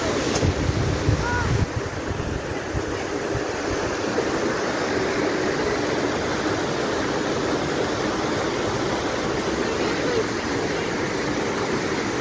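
Steady rush of flowing water, with a low rumble of wind on the microphone in the first couple of seconds.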